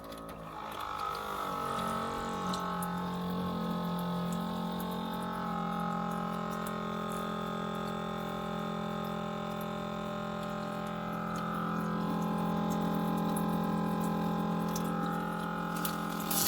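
Small electric drinking-water dispenser pump running steadily with a motor hum, water pouring from its spout into a plastic play-sink basin.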